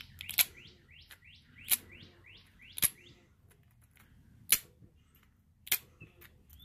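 A sharp-edged stone working the edge of a thin stone flake, grinding small saw-tooth notches into it: five sharp clicks about a second apart. A bird chirps over and over behind it, short rising calls.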